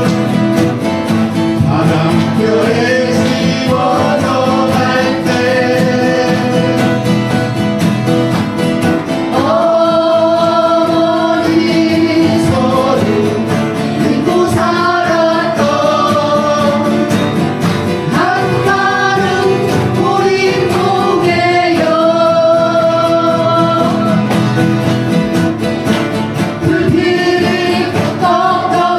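Several acoustic guitars strumming chords to accompany a sung melody, a song performed by an amateur guitar group singing into microphones.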